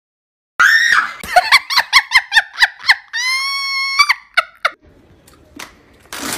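Small dog yelping in quick high-pitched cries, about four a second, then one long steady scream, then a few more yelps.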